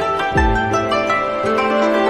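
Background music of plucked strings, harp-like, with a low bass note changing about half a second in.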